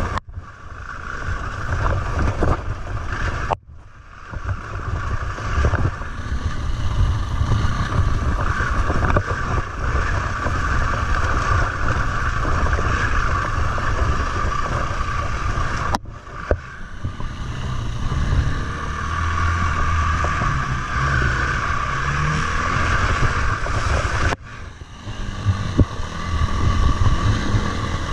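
KTM 350 EXC-F four-stroke single-cylinder enduro bike engine running on a rough trail, rising and easing off with the throttle and dropping away briefly a few times, with the bike knocking and rattling over bumps and wind on the microphone.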